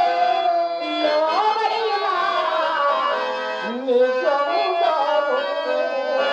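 Live Indian stage-drama music: a harmonium holds reed chords under tabla, while a melody line slides up and down in pitch.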